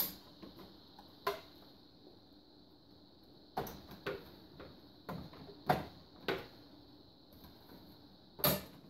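The plastic top cover of an XYZprinting Da Vinci 1.0A 3D printer being worked loose by hand, giving about eight sharp, irregularly spaced clicks and knocks. The loudest comes near the end.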